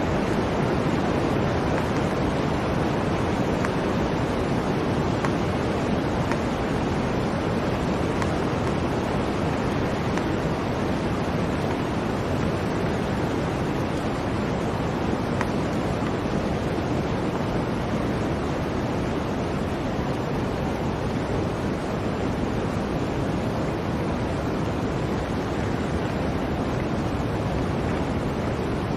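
Blizzard wind: a steady, even rushing with no separate events and no rise or fall.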